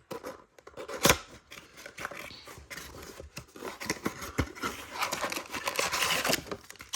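A cardboard trading-card blaster box being opened by hand, with cardboard scraping and tearing. There are sharp clicks about a second in and again past four seconds, and denser scraping near the end.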